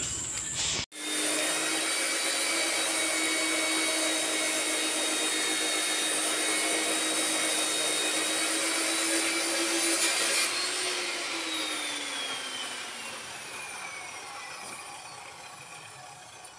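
Electric angle grinder cutting steel reinforcing bar with a steady whine. About ten seconds in it is let off and winds down, its pitch falling and fading as it slows.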